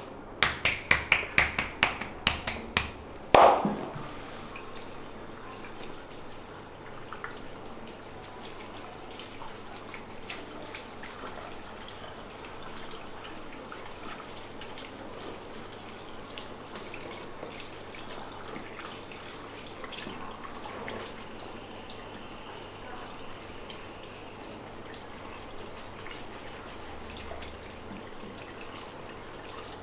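Hand strikes on a person's back during massage: about ten quick slaps in the first three seconds, then one louder hit. After that, water from a shampoo basin's hand sprayer runs steadily over hair into the basin.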